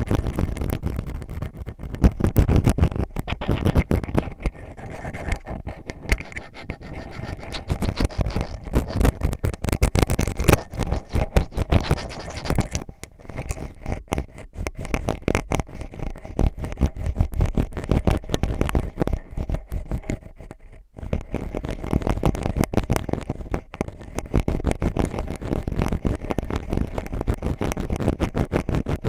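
An ear pick scraping and digging in fast, dense scratching strokes, with a short break about twenty seconds in.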